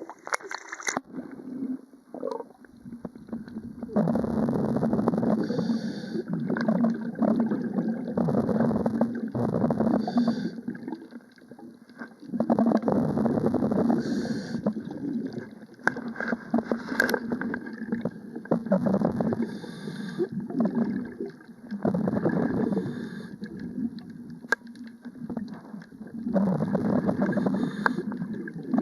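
Water gurgling and bubbling in surges that swell and fade every few seconds, over a faint steady low hum.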